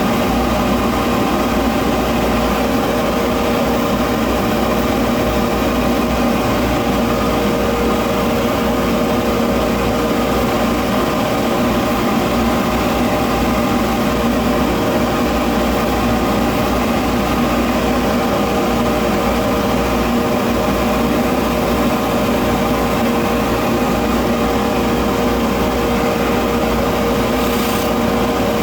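Electric polishing buffer motor running steadily with a constant hum, as brass hardware is polished on it.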